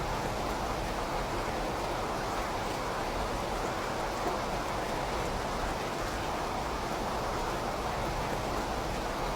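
Steady rain: an even, unbroken hiss.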